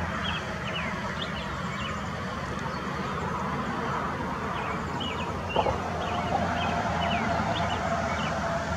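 Steady low background rumble, with short high bird chirps that slide down in pitch, repeated in small groups throughout. A faint steady tone comes in about six seconds in.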